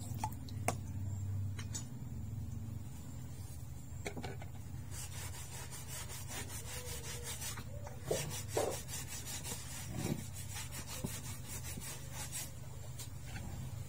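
A large kitchen knife being sharpened with repeated scraping strokes of the wet blade across a stone, with a few knocks in between.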